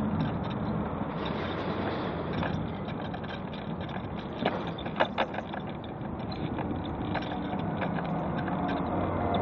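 Mobility scooter rolling along a paved pavement: a steady motor hum and rattle, with a few sharp knocks about halfway through.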